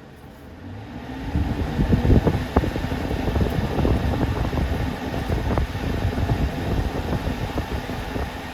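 Lasko 3725 box fan switched on with its blade fitted and grills off, spinning up over the first second or so and then running with a loud, rough, uneven rush of air and occasional sharp knocks. The motor shaft shakes badly, so the blade runs unsteadily.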